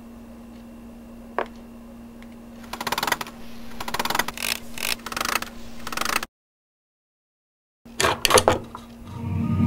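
Hard puzzle blocks clattering and clicking as they are set onto a gridded game board, a dense run of small knocks. After a sudden cut to silence comes a short second burst of rattling, then eerie music swells in near the end.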